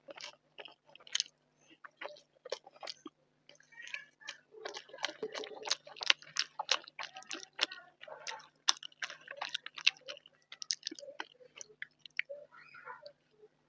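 Close-miked chewing of rice and curry: wet mouth sounds and lip smacks, a rapid run of short clicks that is busiest in the middle.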